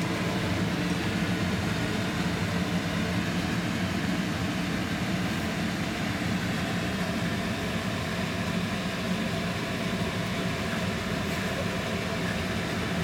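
Steady hum and rush of a kitchen range hood's exhaust fan running.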